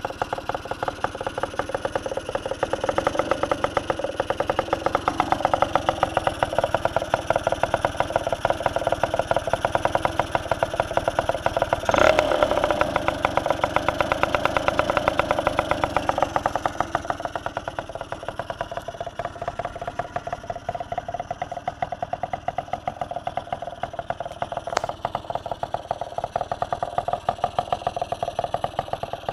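Suzuki RG80 single-cylinder two-stroke engine running on a stand, with a rapid firing beat. Its revs are held somewhat higher through the first half, with a brief sharp crack about twelve seconds in, before it settles to a quieter idle. The freshly swapped engine is still awaiting a small final adjustment.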